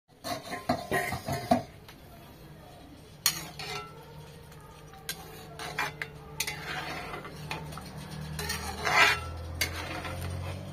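A metal ladle clinking and scraping against an iron wok while stirring simmering curry. There is a quick run of knocks in the first second and a half, scattered clinks after that, and a louder cluster about nine seconds in.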